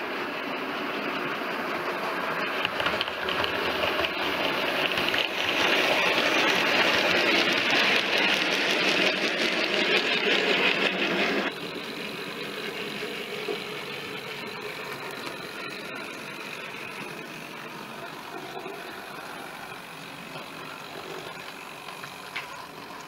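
OO gauge model train running along the track: the locomotive's small electric motor and the wheels on the rails make a steady mechanical running noise. The noise is louder for the first half, drops suddenly about halfway through, and carries on quieter.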